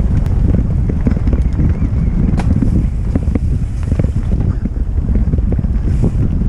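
Wind buffeting the microphone of a helmet camera on a mountain bike riding fast down a dirt trail, a heavy steady rumble with knobbly tyres running over the ground. Frequent sharp clicks and rattles come from the bike over roots and bumps.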